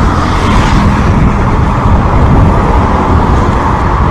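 Steady rush of wind over the microphone of a handlebar-mounted camera on a moving bicycle.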